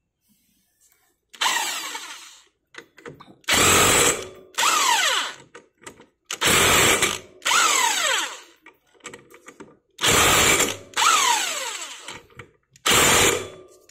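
Cordless impact wrench hammering in about eight short bursts as it drives the 17 mm nut onto the scooter's CVT variator pulley, the motor whine falling away each time the trigger is let go.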